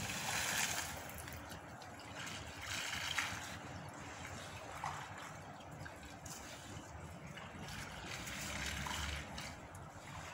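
Water trickling steadily, with a few brief louder swells of hiss.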